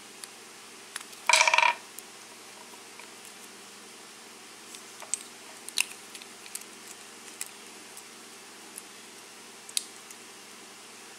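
Small sharp metallic clicks and taps from a lock cylinder and tools being handled while the plug is worked out of the housing, with one brief, louder ringing sound about a second and a half in.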